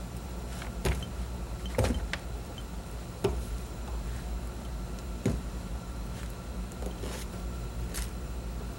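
A steady low electrical hum, with a handful of light clicks and taps scattered through it as metal soldering tongs and a hand instrument pick softened Duralay resin off a soldering investment.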